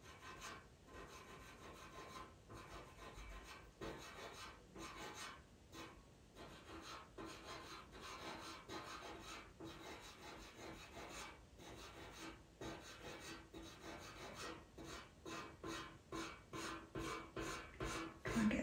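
Pastel pencil scratching over PastelMat paper in repeated short strokes, hatching and blending colour into a drawing; the strokes quicken toward the end.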